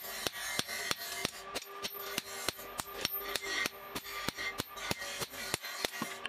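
Hand hammer striking a hot steel knife blade on an anvil in a rapid, steady rhythm of about five blows a second, with the anvil ringing between the blows: forging the blade to shape.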